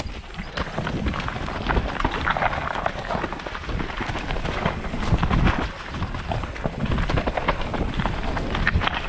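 Mountain bike rolling over a rough trail: tyres crunching on gravel and the bike rattling with many small clicks, over a heavy rumble of wind on the microphone.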